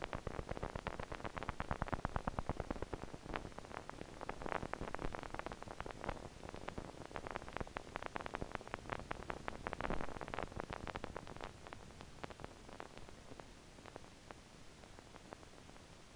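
Facial EMG loudspeaker output from the right frontalis muscle: a fast, irregular stream of clicks from pathological spontaneous activity (fibrillation potentials and positive sharp waves). This activity is the sign of complete axonal damage to the facial nerve from a temporal bone fracture. The clicks come thick for about the first ten seconds, then thin out and grow fainter.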